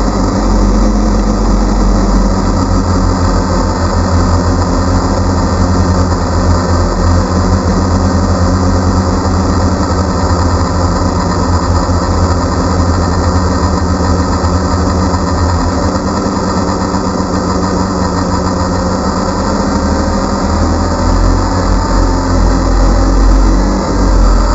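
DJI Phantom quadcopter's motors and propellers running as it hovers, heard from the GoPro mounted on it: a steady whine of several tones over a strong low rumble.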